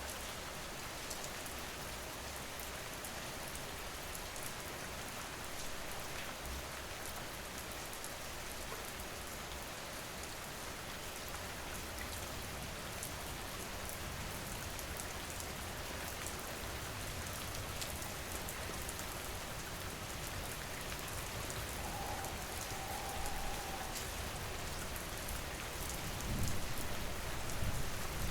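Steady rain falling, with many small drop ticks. A low rumble swells near the end.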